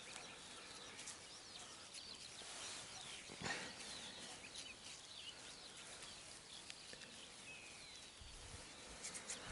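Faint chirping of small birds over a quiet outdoor background, with a single soft knock about three and a half seconds in.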